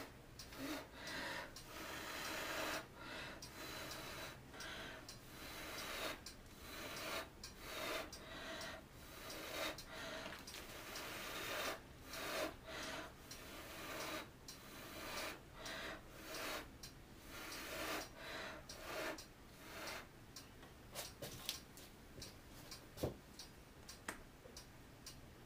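Repeated short puffs of breath blown by mouth across wet acrylic paint on a canvas, pushing the paint out into lacing in a Dutch pour. The puffs come about once a second, thin out near the end, and give way to a few light clicks.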